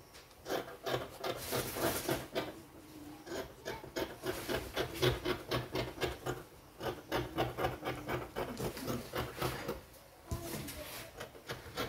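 Scissors snipping through stiff paper interfacing (paper gum), a rapid run of crisp cuts with the paper rustling, broken by a few short pauses as the blades are repositioned.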